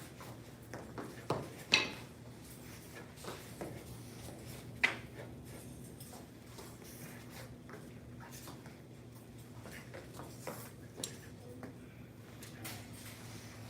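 Occasional sharp clinks and knocks of a pair of training butterfly knives handled and struck during a form, most pronounced in the first five seconds, over a steady low hum.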